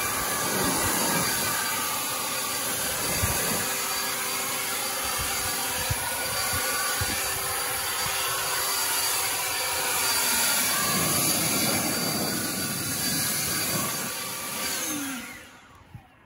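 Handheld leaf blower running steadily, a rush of air with a steady motor hum, blowing debris off the garden railroad track. Near the end it is switched off and winds down with a falling pitch.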